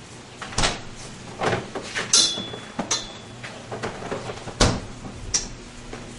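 An old refrigerator being rummaged in and shut: about six separate knocks and clunks of its door and contents. There is a short ringing clink about two seconds in, and the loudest thump comes past the middle.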